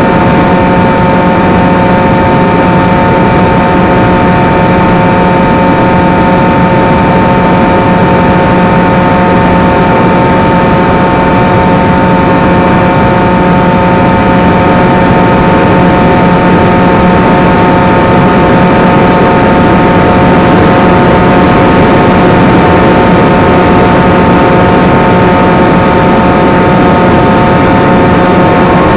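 Brushless electric motor and propeller of a small FPV flying wing, heard from its onboard camera: a loud whine held at one steady pitch, mixed with the rush of air over the airframe.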